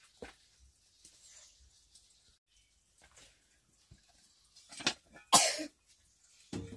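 A person coughing twice, two short harsh coughs about half a second apart, roughly five seconds in.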